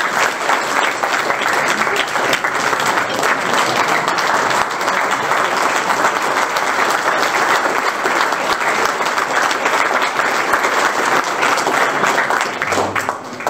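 A roomful of people applauding in a standing ovation: dense, sustained clapping that tapers off near the end.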